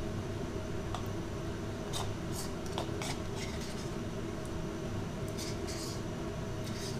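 Metal spoon scraping and clicking against a bowl as thick sauce is scooped out, a few light clicks scattered through, over a steady low background hum.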